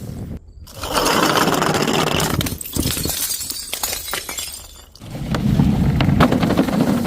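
Glass breaking in two loud crashes about four seconds apart, with scattered sharp clinks of shards in between.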